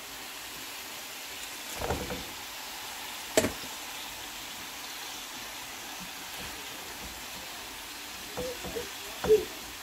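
Vegetables in an oiled pan on high heat sizzling steadily as broccoli florets are added and arranged by hand. A few knocks come from the florets and pan: a small cluster about two seconds in, a sharp click a little later, and light knocks near the end.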